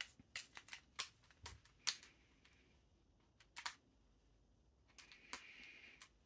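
Light clicking and tapping of tools and small parts as a spade terminal is worked onto an airsoft gun's electric motor: a quick run of clicks at first, a pair about midway, then a few more clicks with a short rub near the end.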